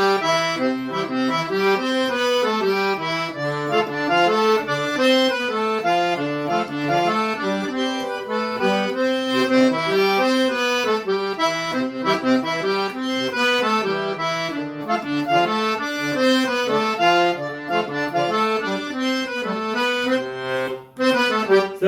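Accordion playing an instrumental solo in a lively Northeastern Brazilian forró style, with quick runs of notes and a steady beat. There is a brief drop just before the end.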